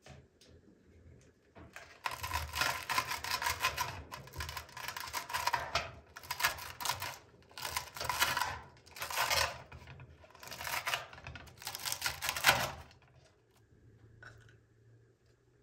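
Metal slotted spatula scraping and prying crisp tahdig, the fried rice crust, off the bottom of a steel pot: a crunchy, scratchy scraping that runs for a few seconds, then about five shorter strokes, stopping a couple of seconds before the end.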